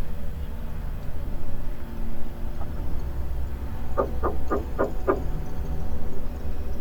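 Five quick knocks on a front door, about four seconds in, heard through a doorbell camera's microphone over a steady low hum.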